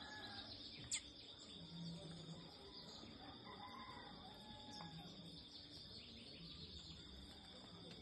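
Faint garden ambience: birds calling now and then over a steady high insect drone, with one sharp click about a second in.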